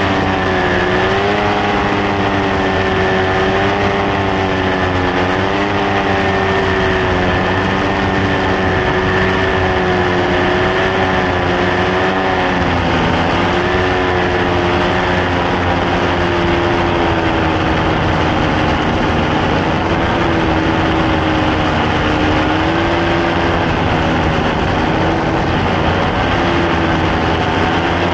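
Paramotor trike's engine and propeller running steadily in flight, the pitch drifting up and down slightly with the throttle.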